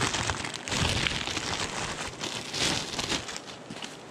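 Plastic packaging crinkling and rustling as hands unwrap a plastic-wrapped part, a dense irregular crackle that eases off near the end.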